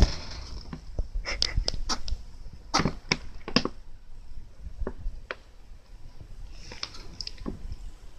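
Mini Rex rabbit sneezing: short, sharp sneezes in quick clusters, a run of them about a second in, more around three seconds, a couple near five seconds and a last few near the end. A sharp click at the very start is the loudest sound.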